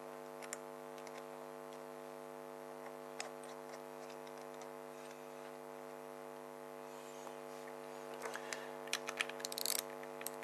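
Steady electrical mains hum with faint light clicks of small metal carburettor parts being handled. About eight seconds in, louder metallic clicks and rattles start as a socket ratchet is picked up and fitted onto the float bowl bolt.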